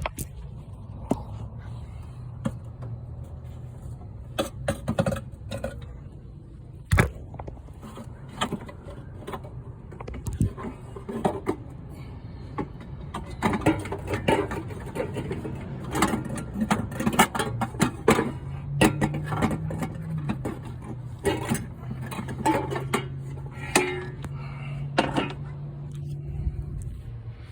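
Throttle-body-injected 350 V8 idling steadily after a tune-up with new plugs, wires and distributor, run to check whether a small miss is cured. Metal clinks and taps sound over it, and the pitch rises briefly about 18 seconds in.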